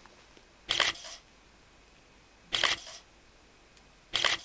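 Camera shutter clicking three times, about two seconds apart, as photos are taken.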